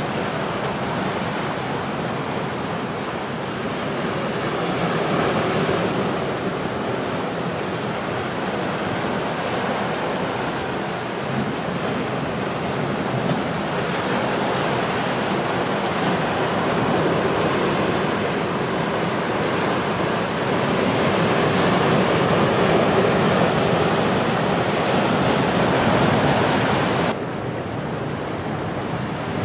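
Heavy ocean surf washing over a rocky shore after a storm: a steady noise that swells and eases, then drops suddenly to a duller, quieter sound near the end.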